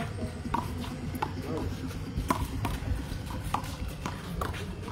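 Small rubber handball being played in a one-wall rally: about six sharp smacks, irregularly spaced, as the ball is struck by hand and hits the wall and the concrete, over a steady low background rumble.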